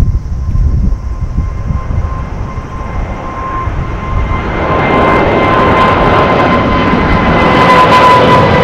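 Boeing 777-300 airliner's twin jet engines at climb power just after takeoff, heard from the ground as it passes overhead. A low rumble grows much louder about halfway through, carrying a steady whine whose pitch sinks slowly near the end.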